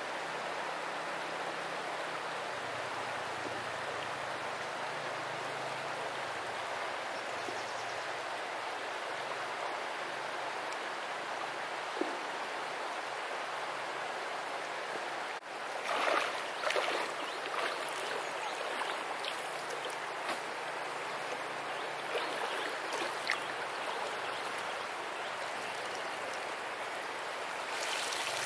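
River water rushing steadily. Just past halfway comes a burst of splashing in the water, followed by scattered smaller splashes as a person wades and works a net waist-deep in the river.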